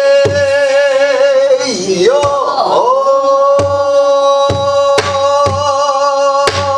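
Pansori singing: a single voice holds a long high note with vibrato, dips and swoops about two seconds in, then settles on another long held note. Sparse strokes on a buk barrel drum, stick and hand, accompany it.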